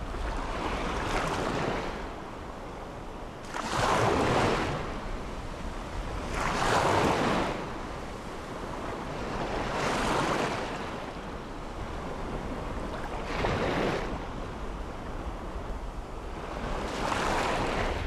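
Small ocean waves breaking and washing up a sandy beach, a surge of rushing surf about every three seconds, over a steady low rumble.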